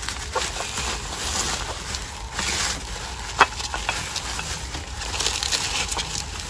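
Bubble wrap rustling and crinkling as it is handled and pulled open around a glass vase, with scattered crackles and one sharp click about three and a half seconds in.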